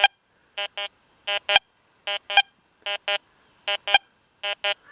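XP Deus 2 metal detector sounding its target tone over a gold ring with iron beneath it: short beeps in pairs, about six double beeps at a steady rhythm as the coil sweeps back and forth. Two faint clicks come in between the beeps.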